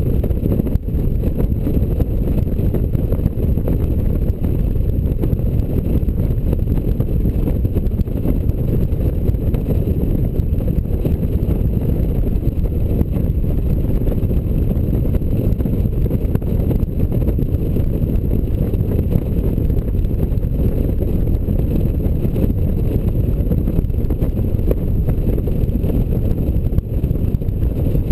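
Steady low wind rumble on the microphone of a camera mounted on a Honda Gold Wing motorcycle cruising at road speed, mixed with the bike's riding noise.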